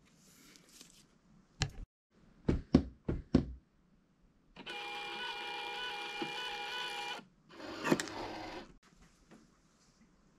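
A few sharp clicks and knocks, then a Brother desktop label printer running with a steady whine for about two and a half seconds as it feeds out label tape, and another click about a second after it stops.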